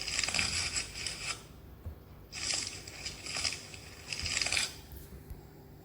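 A giraffe calling: three breathy, hissy calls of about a second each, the second and third close together after a short pause.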